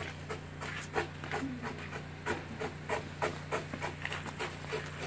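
Rhythmic crunching of sleet and ice, short sharp strokes about three a second, over a steady low hum.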